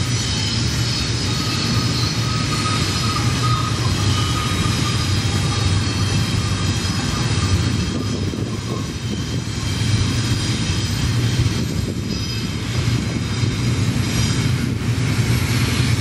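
Double-stack container train's well cars rolling past: a steady deep rumble of steel wheels on rail, with thin high whines from the wheels above it.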